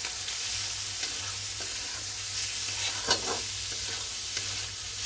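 Chicken pieces and chopped cabbage and capsicum sizzling in hot oil in a kadhai while a spatula stirs and scrapes them around the pan.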